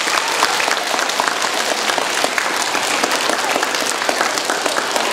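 A large audience of schoolchildren clapping: dense, steady applause.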